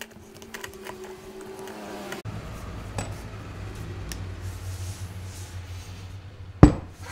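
Light clicks and taps of gloved hands and a steel C-clamp working a scooter tire while its bead is being broken off the rim, with one sharp knock near the end.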